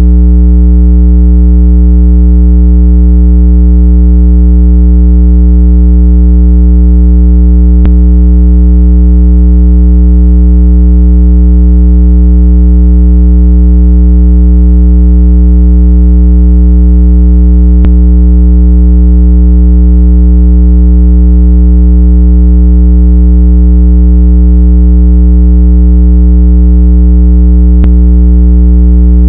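Loud, steady, low-pitched buzzing test tone played to shake water out of a wet phone speaker, holding one pitch throughout, with a faint click three times, about ten seconds apart.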